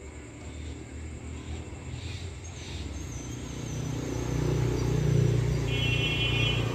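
An engine rumbling, growing steadily louder as it draws near. A steady high-pitched tone starts near the end.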